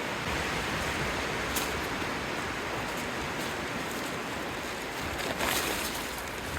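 Steady wind blowing, with a gust near the end.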